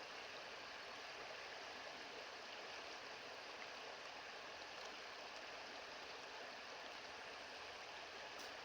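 Steady, even rush of river water flowing.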